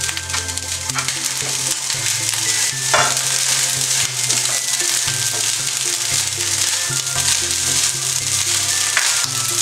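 Rice, lentils and chopped vegetables sizzling in a hot nonstick pan while a wooden spatula stirs and scrapes through them, with a sharper scrape about three seconds in.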